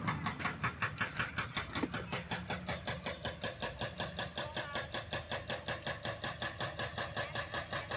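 Excavator-mounted hydraulic breaker on a CAT 320C hammering K500 concrete in a fast, even rhythm of about eight blows a second. The excavator's diesel engine runs steadily underneath.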